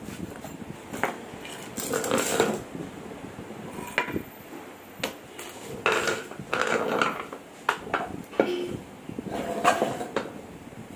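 Metal clinks, clanks and scraping in several short irregular bursts as a Toyota Innova propeller shaft and its universal-joint yokes are handled and pulled apart.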